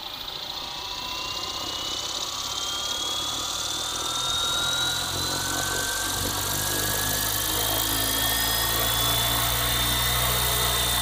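An electric FlyWing FW450 RC helicopter's brushless motor and rotors spooling up on the ground after arming. A whine rises slowly in pitch and grows louder, with a low rotor drone building beneath it, and it levels off at head speed near the end, ready for takeoff.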